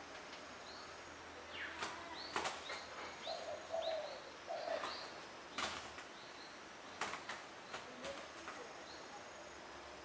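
Spotted doves fighting on the ground, their wings giving several sharp flaps and claps about 2, 5.5 and 7 seconds in. Many short, high chirps run between the flaps.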